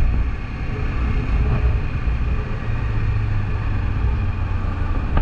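Kawasaki Eliminator 500 parallel-twin motorcycle engine running steadily under way, a low rumble mixed with wind noise on the microphone.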